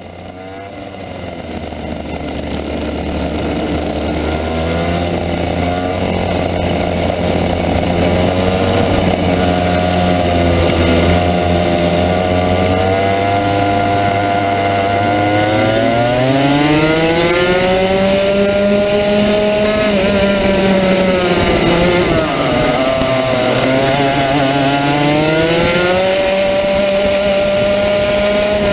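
Two-stroke Rotax Max kart engine heard onboard, fading in over the first few seconds and running at steady revs, then climbing in pitch about halfway through, dipping briefly and climbing again.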